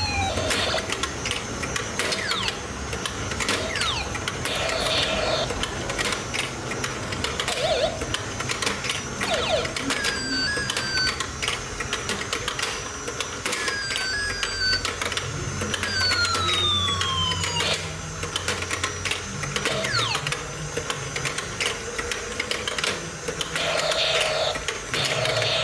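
Battery-powered whack-a-mole toy being played: a plastic toy hammer taps the pop-up moles over and over in quick clatters, over the toy's electronic sound effects. Two falling whistle tones sound at the start and about two-thirds in, with short beeping jingles in between.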